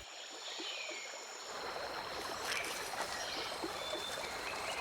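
Running water lapping and flowing, with faint, steady, thin high tones over it.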